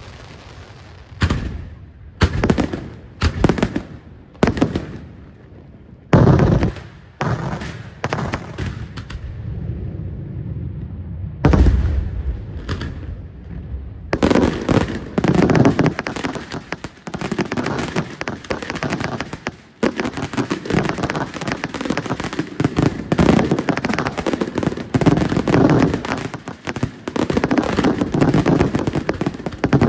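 Daytime aerial firework shells bursting with sharp bangs, at first singly about a second or two apart, then from about halfway through in a dense, rapid barrage of bangs.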